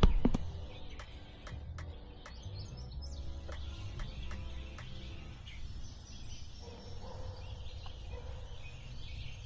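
Outdoor ambience with birds chirping over a low rumble of wind on the microphone, and a run of light, quick clicks in the first few seconds.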